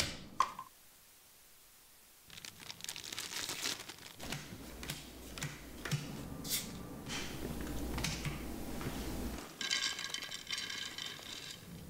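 Scattered small clicks and rustles of cards and game pieces being handled on a board game. About ten seconds in, a dense rattling rush as dry snack mix is poured into a bowl for about two seconds.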